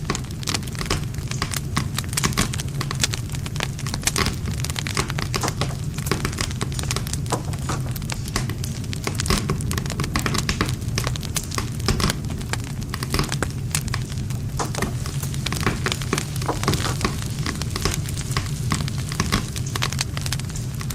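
Wood campfire burning: dense, irregular crackling and popping of the burning wood over a steady low rumble.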